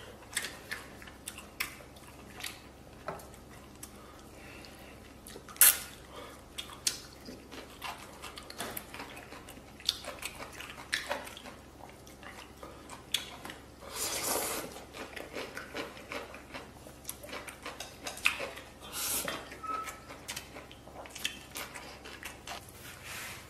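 Chopsticks clicking and scraping against a metal rice bowl and a plate in irregular short knocks, one sharper knock about six seconds in, with eating sounds in between.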